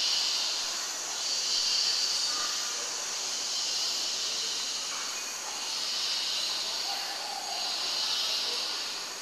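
A steady hiss that swells and fades in slow waves every one to two seconds.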